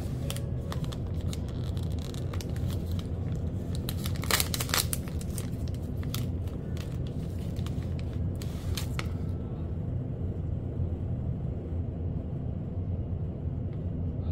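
Thin plastic snack wrapper crinkling and tearing as it is opened by hand, in quick crackles, loudest about four seconds in. The crinkling stops about nine seconds in, leaving only a steady low rumble in the background.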